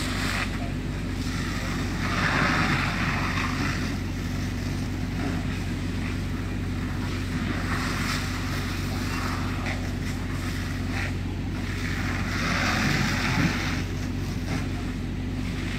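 A fire hose's water stream hissing and rushing onto a burning car, swelling twice, over a steady low engine hum.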